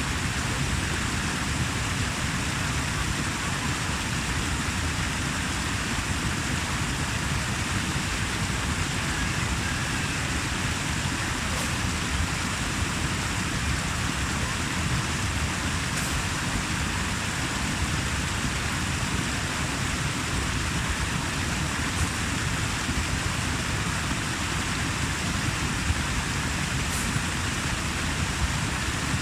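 Steady rush of running water, an even noise that does not change, with a few faint ticks.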